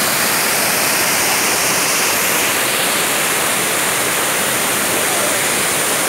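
Small jungle waterfall pouring into a rock pool: a steady rush of falling water.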